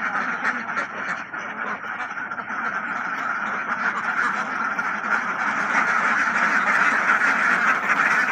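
A large flock of hundreds of domestic ducks quacking all together in a continuous din, growing a little louder toward the end, as the ducks crowd around a man bringing them feed.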